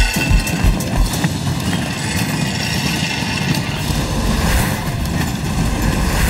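Cartoon sound effect of wheels rolling fast along a metal roller coaster track: a steady, dense rattling rumble, with a few thuds in the first second.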